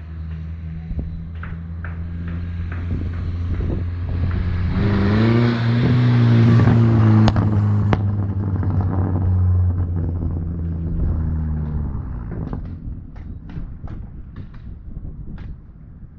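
Turbocharged 1.8-litre four-cylinder of a 2003 VW New Beetle, breathing through a 3-inch catless downpipe and a Cherry Bomb glasspack muffler, running. Its note swells to a loud peak with a rushing hiss about halfway through, then fades away about three-quarters of the way in. A series of light ticks follows near the end.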